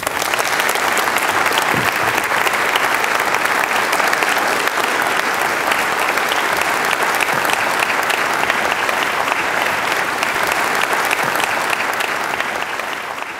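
Audience of many people applauding, a steady dense clapping that begins to fade near the end.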